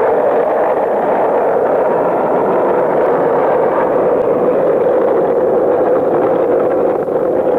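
Skateboard wheels rolling over concrete: a steady, unbroken rolling noise.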